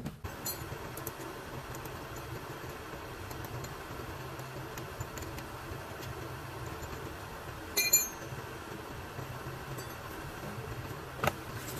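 Steady low hum of an idling engine. A sharp metallic clink rings about eight seconds in, and a short knock comes near the end.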